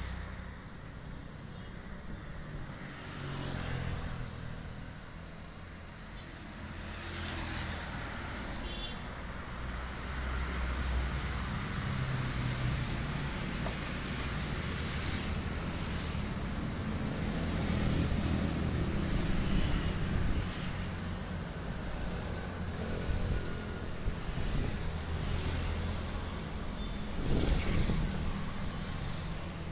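Road traffic: motor vehicles running and passing in a steady low rumble that swells now and then.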